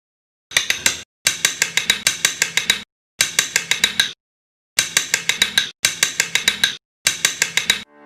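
Rapid mechanical clicking, about seven sharp clicks a second, in six short bursts separated by abrupt silences.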